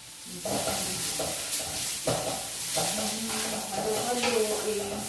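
Vegetables sizzling in a hot wok on a gas stove while being stirred, the spatula scraping the pan in repeated strokes. The sizzling starts about half a second in.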